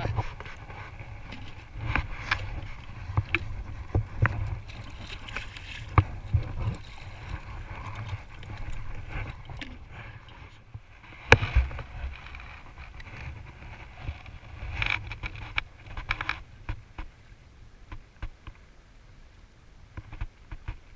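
Wind blowing on the microphone, with scattered knocks and clicks from handling the fish, tackle and rod. The sharpest click comes about eleven seconds in.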